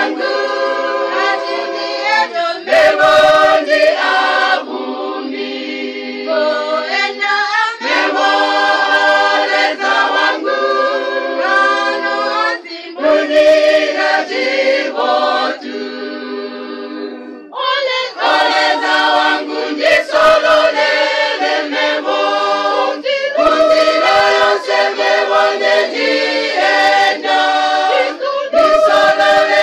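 Mixed church choir singing a cappella in close harmony, in held chords sung phrase by phrase with short breaks between.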